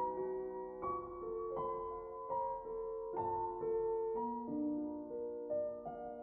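Slow, gentle piano music, one note after another about every half second, each left ringing so the notes overlap.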